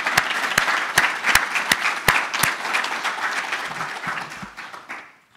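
Small audience applauding, with a run of sharp, evenly spaced claps close to the microphone from the man at the podium over the first couple of seconds. The applause dies away about five seconds in.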